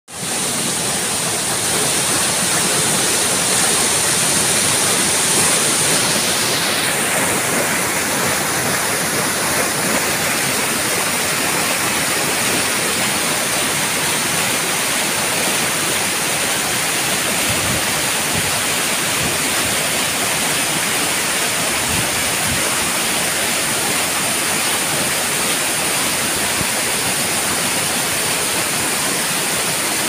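Waterfall crashing onto rocks and spilling in many streams down a cliff face: a loud, steady rush of water.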